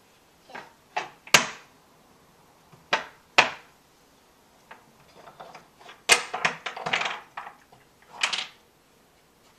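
Wooden toy trains and track pieces knocking and clacking on a wooden train-set table: scattered single sharp knocks, then a quick run of rattling clacks about six to seven and a half seconds in.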